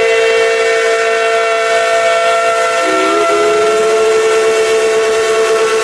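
Steam locomotive whistle from a double-headed Tweetsie Railroad steam train, sounding one long, loud blast made of several tones at once. About three seconds in, its pitch dips briefly and climbs back, then the blast holds steady again.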